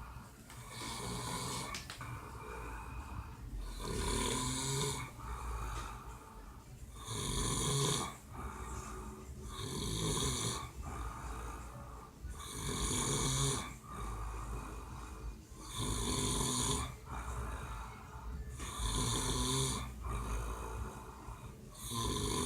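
A man snoring in his sleep, in a regular rhythm of about one snore every three seconds.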